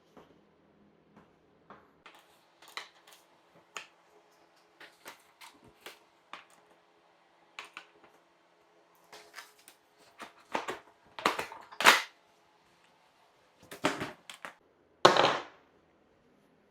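Irregular clicks and knocks of hands and tools working on a dirt bike, with plastic parts being handled as the seat is taken off. The louder knocks come about two-thirds of the way in, and the single loudest one comes near the end.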